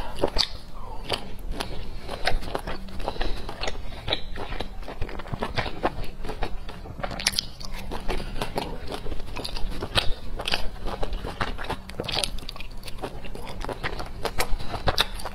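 A person chewing and biting dumplings, close-miked by a clip-on microphone: a steady run of irregular wet clicks, smacks and crunches.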